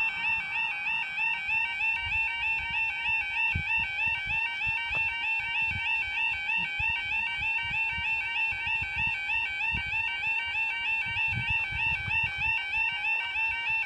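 Level crossing yodel alarm sounding continuously: a steady electronic warble repeating a few times a second. It sounds while the barriers are down and the red lights flash, warning that a train is approaching.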